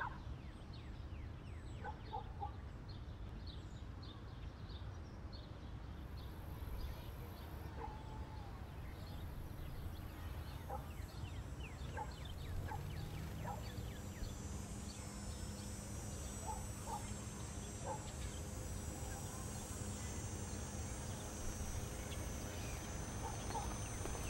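Outdoor ambience: birds chirping in short scattered calls over a steady low rumble. A steady high-pitched hiss and a low hum come in about halfway through.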